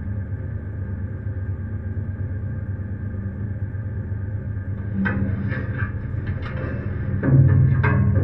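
Ship's engine rumbling steadily as the research vessel moves through broken sea ice. From about five seconds in, a run of knocks and scrapes. Near the end the rumble grows louder.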